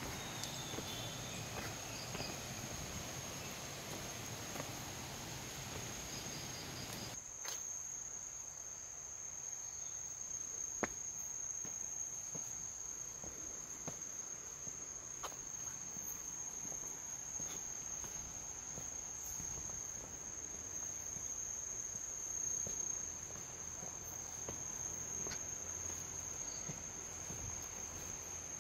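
Insects in the forest keep up one steady, high-pitched trill. A few faint ticks sound over it, and a low background rustle drops away about seven seconds in.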